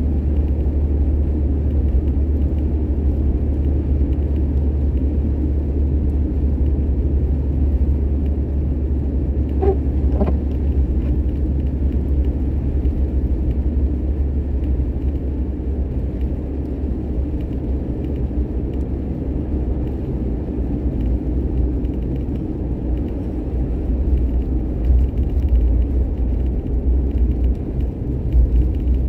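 A car driving, with a steady low road-and-engine rumble throughout. Two short faint tones come about ten seconds in.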